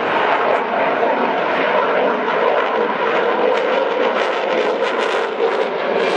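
Eurofighter Typhoon's twin Eurojet EJ200 turbofan engines: loud, steady jet noise as the fighter flies a banking display turn.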